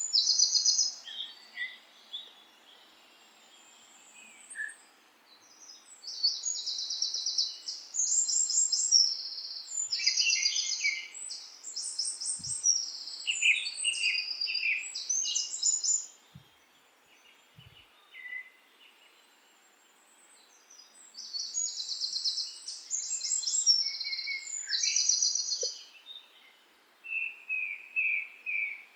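Songbirds singing: spells of rapid, high trilled phrases in quick succession, broken by quiet pauses, with a short run of lower chirps near the end.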